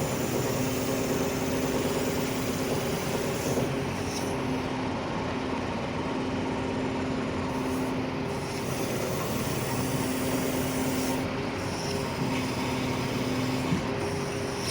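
Hydraulic machine running with its first boom being operated, the piston-type hydraulic pump making an abnormal noise: a steady hum that drops out and returns a few times over a dense, fast rattle. The owner blames the noise on a fault inside the hydraulic pump.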